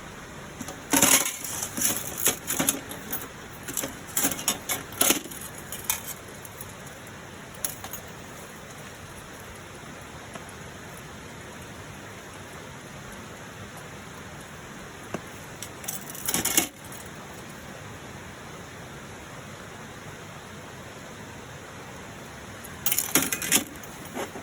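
Light metal pieces clinking and rattling in three clusters of short knocks: a long run near the start, a brief one in the middle and another near the end. Behind them is a steady rushing background noise.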